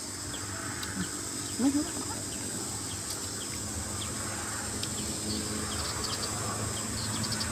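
Steady high-pitched chorus of insects such as crickets or cicadas in grassland, with a run of quick short chirps near the end.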